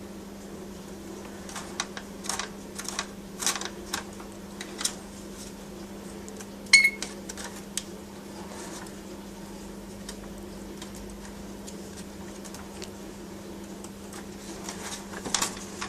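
Scattered clicks and knocks, typical of a pet rainbow lorikeet handling and pecking at a small toy, with one short high-pitched chirp about seven seconds in. A steady low hum runs underneath.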